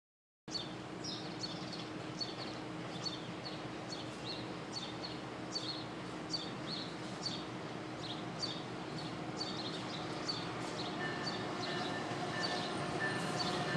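Amtrak AEM-7 electric locomotive and passenger coaches approaching, a steady low hum and rumble growing louder toward the end, with a thin whine joining late on. Over it a bird chirps repeatedly, about once or twice a second.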